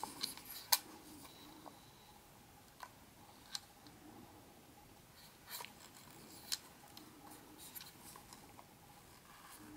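Scattered sharp clicks and light taps with soft rustling: small parts or packaging of a model train set being handled.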